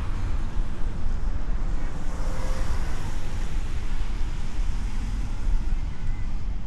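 Wind buffeting the microphone: a loud, unsteady low rumble with a noisy hiss above it.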